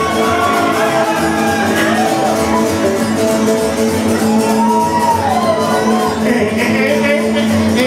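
Live rockabilly band playing loudly on guitars and upright bass, the music going steadily with no break.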